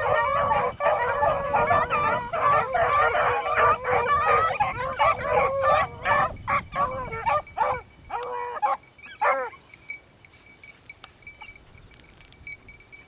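A pack of beagles baying and yelping together, many voices overlapping in a dense chorus that thins out and stops about two-thirds of the way through.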